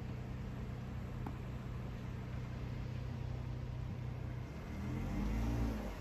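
Steady low hum of road traffic, then a vehicle passing about five seconds in, louder for about a second, its engine pitch rising and falling as it goes by.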